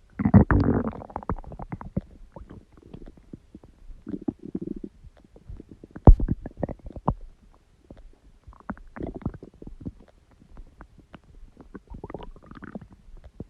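Human stomach growling and gurgling in irregular bursts. There is a louder gurgle right at the start and a sharp pop about six seconds in.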